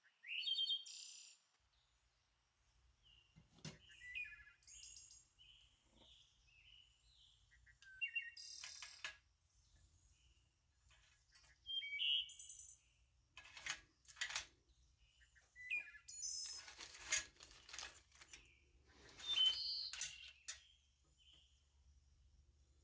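Small birds chirping: short high chirps and quick trills scattered throughout, with a few sharp clicks among them.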